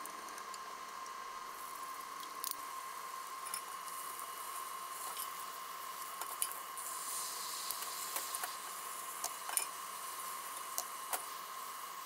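Tamagoyaki cooking sounds: light clicks of chopsticks against a glass bowl and of a spatula against a square metal omelette pan. There is a soft sizzle of egg in the hot pan about halfway through, over a steady faint hum.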